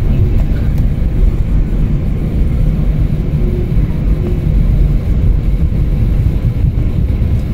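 Loud, steady low rumble inside an airliner cabin as the plane rolls down the runway just after landing: engine and wheel noise.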